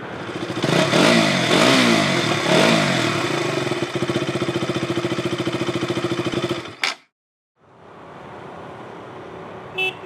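Motorcycle engine revved several times, its pitch sweeping up and down, then held at a steady pulsing note before cutting off abruptly about seven seconds in. After a moment of silence, a quieter steady noise follows, with two short beeps near the end.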